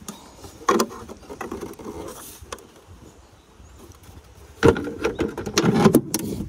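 Plastic clicks, knocks and scrapes of a Ram Promaster van's tail-light housing and its mounting clips being handled by hand. There is a sharp click about a second in and a cluster of knocks and rattles near the end.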